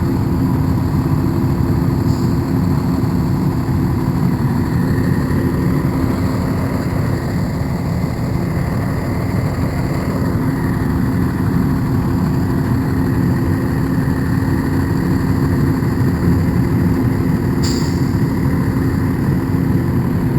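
Heavy ditch-cleaning equipment with its engine running steadily, a constant low rumble with an even hum.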